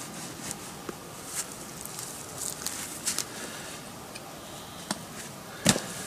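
Camping gear being handled while a backpack is packed: irregular rustling and light clicks, with one sharper knock near the end.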